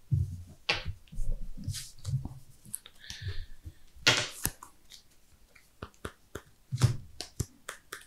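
Trading cards being picked up, slid and set down on a playmat: a run of soft taps, clicks and light thumps on the table, with a short scrape about three seconds in and sharper clicks around four and seven seconds in.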